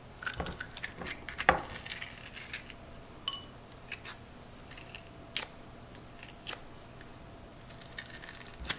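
Metal ice cream scoop scraping seeds and stringy pulp out of a halved squash, heard as scattered scrapes and sharp clicks, the loudest about a second and a half in.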